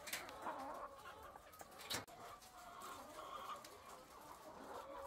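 A poultry house of caged layer hens clucking and calling, a bit noisy as their feeding time nears. A sharp click stands out about two seconds in.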